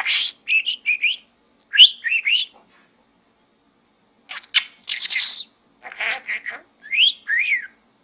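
Budgerigar chattering: a quick string of short whistled chirps that glide up and down, mixed with scratchy bursts, in two spells with a pause of about a second and a half between them.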